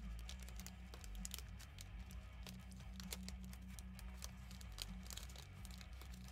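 Faint crinkling and scattered light clicks of trading cards and their wrappers being handled, over a steady low hum.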